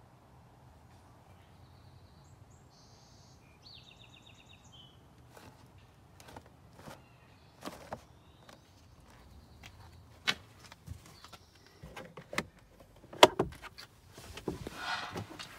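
Handling sounds: scattered taps and clicks as a cardboard cabin-air-filter box is turned over, then a sharp knock about 13 seconds in as the car's glove box is opened, followed by a brief rustle. A bird chirps faintly a few times in the first seconds.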